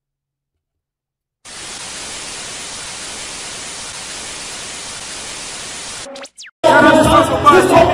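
Television static sound effect: a steady white-noise hiss that starts after a moment of silence and lasts about four and a half seconds, ending with a quick falling tone. About seven seconds in, loud voices of a crowd cut in.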